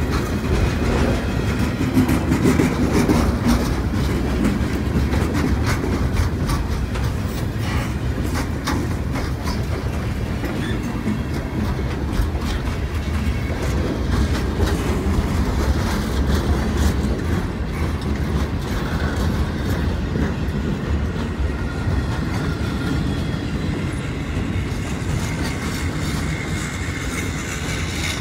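Freight cars of a manifest train rolling past: a steady low rumble of steel wheels on rail with a running clickety-clack of wheels over the track.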